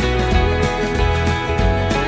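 Background music: country or bluegrass-style acoustic guitar with a steady beat.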